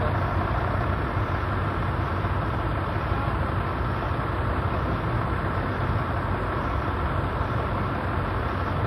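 Truck crane engines running steadily, an even low hum with no change in pace.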